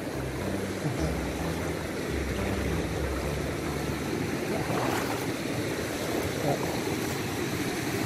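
Shallow, clear stream running over rock ledges and stones: a steady rush of flowing water.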